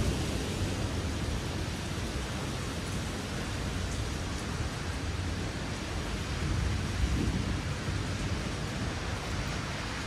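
Thunderstorm rain and wind as a steady rushing hiss, with a brief low rumble about seven seconds in.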